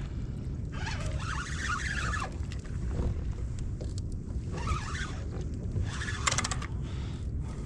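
Steady wind rumbling on the microphone, with three short higher-pitched bursts about one, four and a half and six seconds in, the last ending in a quick run of clicks.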